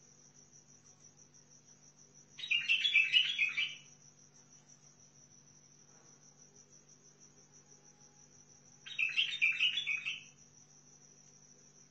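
A white-eared bulbul sings two short, warbled phrases of about a second and a half each, the first about two seconds in and the second about nine seconds in. Behind it runs a constant high, pulsing, insect-like trill.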